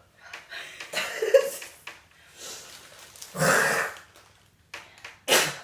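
A woman coughing and gagging in three bouts, the longest about a second in and a short, sharp one near the end, after eating bananas and drinking Sprite.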